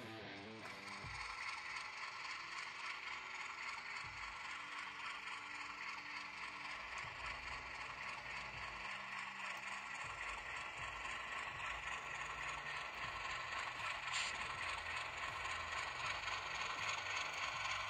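HO scale model diesel switcher running along the track with freight cars behind it: the steady mechanical whir of its small motor and gearing, with the wheels rattling on the rails. It grows slowly louder as it comes closer.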